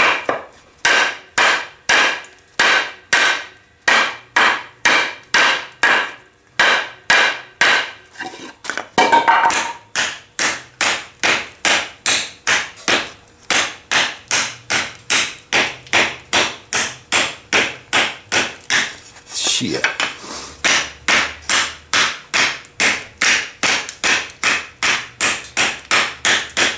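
A hand-forged knife, made from a Heller farrier rasp, chopping into a 1x3 softwood board. It is a long, even series of sharp chops, about two or three a second, with brief pauses.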